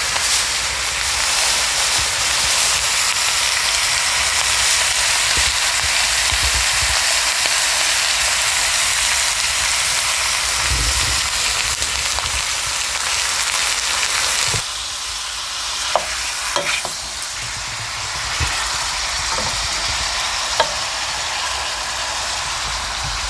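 Beef fat trimmings sizzling in a pot over a gas burner as they render into tallow: a steady hiss. About fifteen seconds in it turns quieter, and a few knocks and scrapes come from the pot as the fat is stirred with a spoon.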